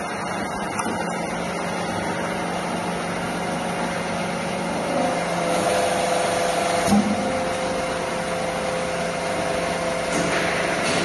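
Rebar threading and forging machine running with a steady motor hum. A higher steady whine joins about five seconds in, and there is a brief knock about two seconds later.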